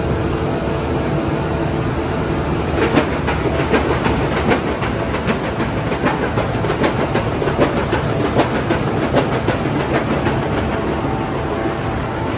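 Corrugated-carton flexo printer slotter die-cutter with vacuum transfer running: a steady mechanical din with rhythmic clacking, about two or three a second, from about three seconds in.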